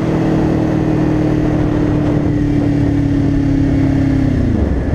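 2022 Kawasaki Ninja 400's parallel-twin engine running under way at a steady cruising note that sags slightly. Its pitch falls away near the end as the bike slows.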